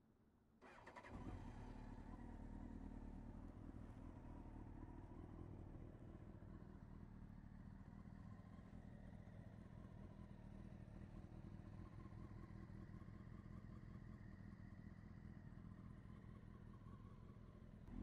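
2000 Honda CBR929RR Fireblade's inline-four engine, breathing through an Erion Racing full exhaust, starting up about half a second in and then idling steadily.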